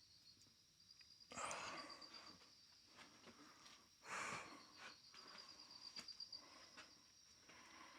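Crickets chirping in a steady high pulsing trill, with two loud breathy exhalations from a person exercising about a second and a half and four seconds in.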